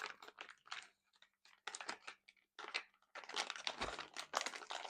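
Packaging crinkling and rustling in irregular short bursts as small lock hardware is taken out of its bags.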